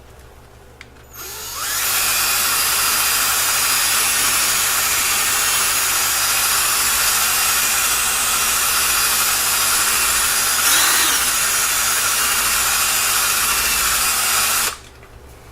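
Drill spinning a foam buffing wheel with polish against a plastic headlight lens: it spins up about a second in, runs steadily, and stops near the end.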